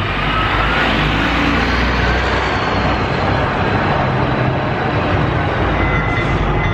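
Houston METRORail light rail train running past on street tracks: a steady rumble with city traffic, and a faint high whine near the end.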